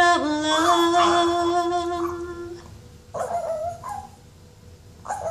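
A woman holding a long sung note while a small long-haired dog howls along with her in a higher pitch. Her note stops about two and a half seconds in, and the dog's wavering howl carries on alone for about a second.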